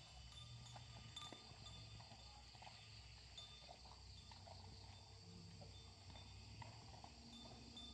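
Near silence: faint rural field ambience with scattered soft ticks and an on-and-off faint high chirping.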